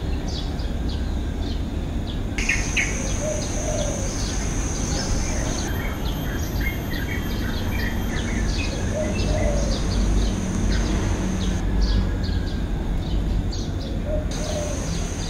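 Outdoor ambience of many small birds chirping, with a steady high-pitched insect buzz that drops out and comes back a few times, over a steady low background noise.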